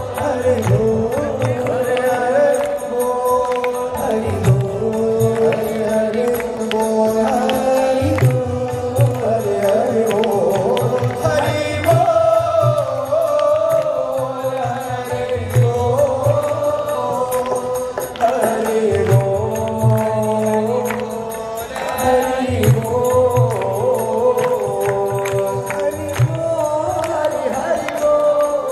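Devotional chant sung as music: a melodic vocal line, held and gliding, over instrumental accompaniment with a pulsing low beat.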